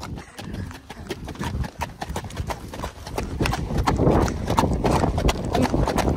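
Ponies' hooves beating fast on the track at a racing pace: a rapid, uneven run of hoofbeats that grows louder about three seconds in.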